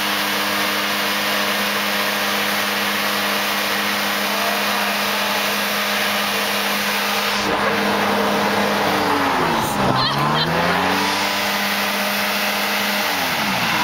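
Hovercraft engine and lift fan running at a steady speed with a loud rush of air; about ten seconds in the engine speed sags and picks back up, then drops again near the end.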